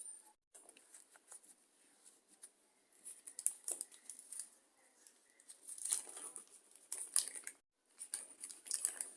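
A tough plastic parts packet being crinkled and pulled at to get it open, in faint irregular rustles and small crackles.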